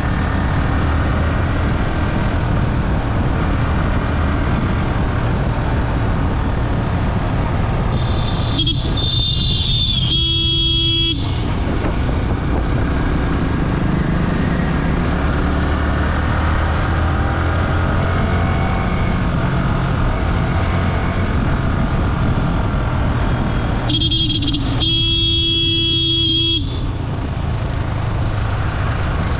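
Wind rush and a Yamaha R15's single-cylinder engine running steadily as the motorcycle cruises in fifth gear. A vehicle horn honks twice, about 9 seconds in and again about 24 seconds in, each time for a couple of seconds.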